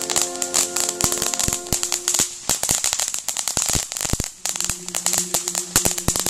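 Ground fountain firework spraying sparks, a steady high hiss thick with rapid crackling pops. Music plays underneath, and the sound dips briefly about four seconds in.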